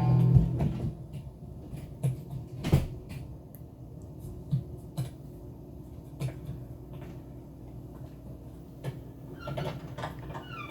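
Film sound effects: a loud knock and clatter at the start, then scattered sharp clicks and knocks over a steady low mechanical hum, with a short pitched, gliding sound near the end.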